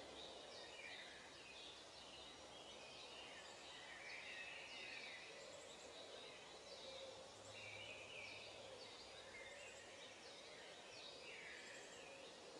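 Faint birdsong: many short, high chirps from several birds over a quiet background hiss.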